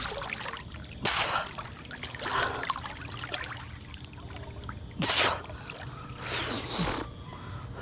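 Pool water splashing and sloshing in separate bursts as a swimmer strokes slowly through it close to the microphone, with her breath puffing out at the surface.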